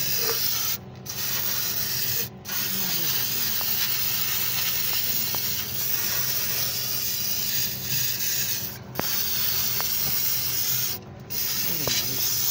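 Aerosol carbon cleaner hissing steadily out of a spray can onto the bare valve body of a CVT transmission, with a few brief breaks where the spray stops.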